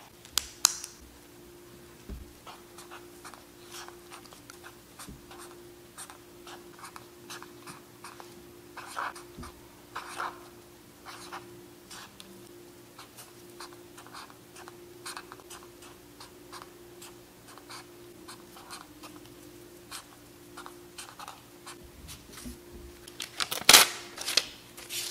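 Felt-tip marker writing on a paper notepad page: many short scratching strokes. Near the end come a few louder rustles as the notepad is handled.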